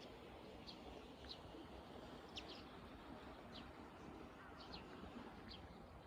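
Small birds chirping faintly, about six short high calls that drop in pitch, scattered over a low, steady outdoor hush.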